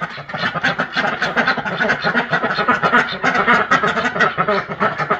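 Several domestic ducks quacking loudly and continuously in a fast, overlapping chatter of short quacks.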